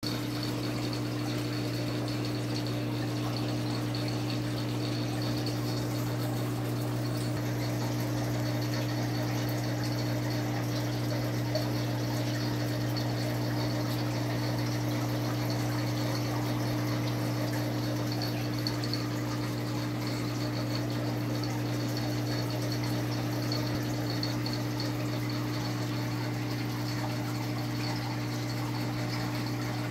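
Aquarium filter pump running: a steady low hum with the even rush of moving water.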